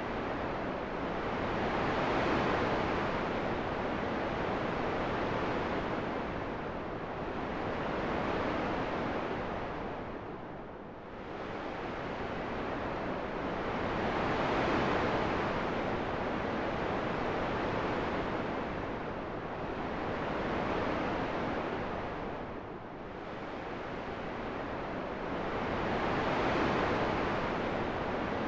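Wind blowing as a steady rushing noise that swells and eases in slow gusts, about one swell every six seconds.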